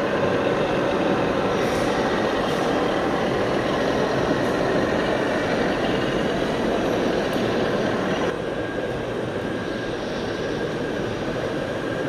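A steady, dense mechanical rumble and hiss, like running machinery, that drops abruptly to a slightly quieter, different texture about eight seconds in.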